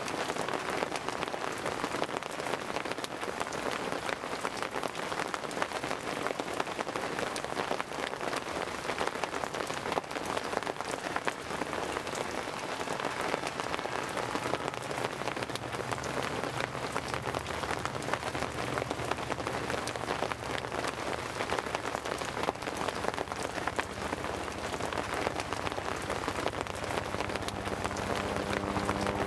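Steady rain falling: a dense, even hiss of drops hitting hard surfaces.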